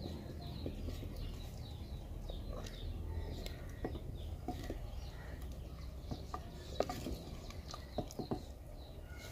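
A wooden spoon stirring in a clay pot of hot soup, knocking against the pot a handful of times, with small birds chirping steadily in the background.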